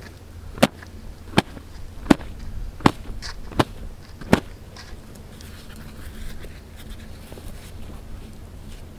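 A cloth swung overhead and slapped down onto a loaf of milla bread, six sharp slaps about three-quarters of a second apart that stop about halfway through: beating the sand off the bread freshly baked in the hot sand.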